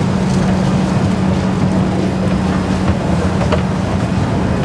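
Escalator running: a steady mechanical hum with a constant low tone under a general station din, with a couple of faint clicks about three and a half seconds in.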